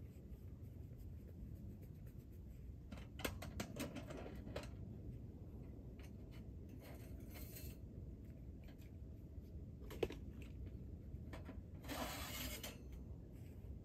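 Light metallic clinks and clicks as the parts of a small portable metal wood stove are handled: a quick cluster about three to four and a half seconds in, one sharp click about ten seconds in, and a brief scraping sound about twelve seconds in.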